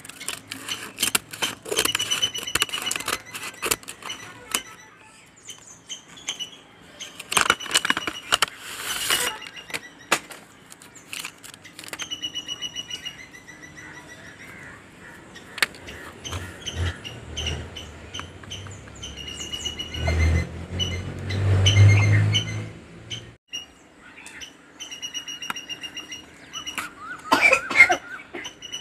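Crackling and crinkling of a kraft-paper courier mailer as scissors cut it open and hands handle it, in two spells early on. Short, high bird calls repeat throughout. A low rumble swells and fades in the middle, and a few sharp scraping strokes come near the end as a knife starts on the box's tape.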